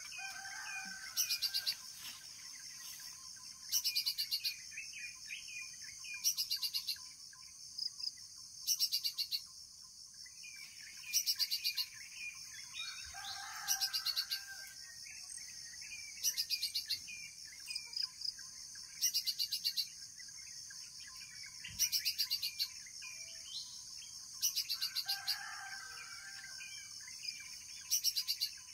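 Forest insects and birds. A steady high-pitched insect drone runs under a loud, pulsing insect trill that repeats about every two and a half seconds, and birds chirp and call now and then, most around a second in, in the middle, and near the end.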